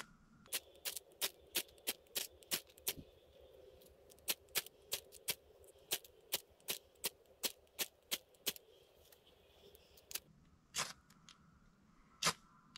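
Fire steel (ferro rod) struck again and again with its scraper, a quick run of sharp scrapes about three a second with a short pause about three seconds in, then a few slower strikes near the end: throwing sparks onto magnesium shavings to light the tinder.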